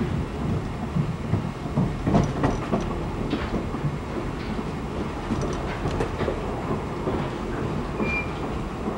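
Passenger train running along the track: a steady low rumble with wheels clacking over rail joints, the clacks bunched about two seconds in and again around five to six seconds, and a brief high squeal near the end.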